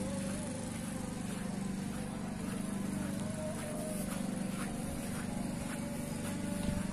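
Petrol push lawn mower running at a distance with a steady engine drone as it cuts the grass.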